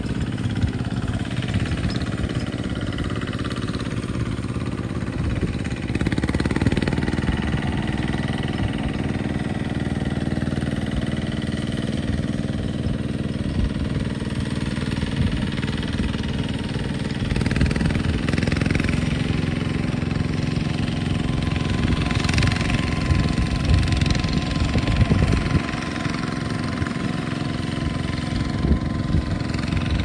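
Kubota two-wheel walking tractor's single-cylinder diesel engine running steadily as it tows and powers a boom crop sprayer.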